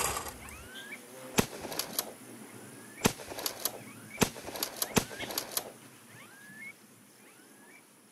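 Birds chirping with short rising calls, with a series of sharp cracks coming in quick runs of two to four, from about a second and a half in until about six seconds in.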